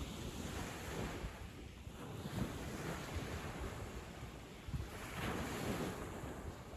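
Sea waves breaking and washing up a sandy beach in repeated swells, with some wind noise on the microphone.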